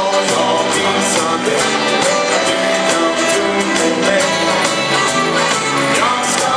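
Dansband music with a steady drum beat, in a stretch with no lead vocal words.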